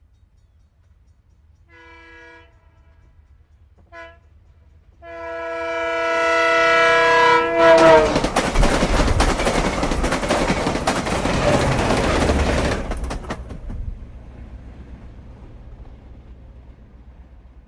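Commuter train passing by. Its horn sounds a short blast, a very brief toot, then a long blast that drops in pitch as the train goes past. The train's rumble and wheel clatter come up loud and then fade away.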